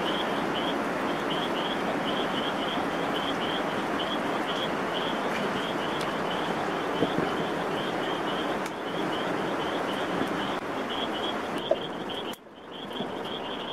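Night ambience: a steady rushing noise under a small frog or insect chirping over and over, about three calls a second. The rushing drops away briefly near the end.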